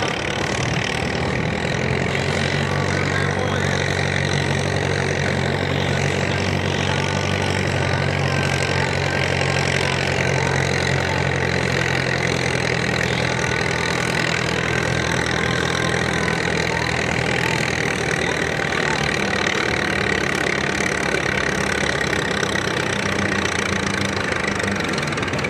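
Antique farm tractor's engine idling steadily, an even low run with little change in speed.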